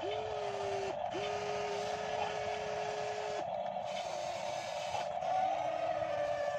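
Remote-control model excavator's electric motor whining steadily while the arm lifts a bucket of mud out of the water and swings it over, with a second, higher tone that comes in twice, first for about a second, then for about two seconds, as the controls are worked.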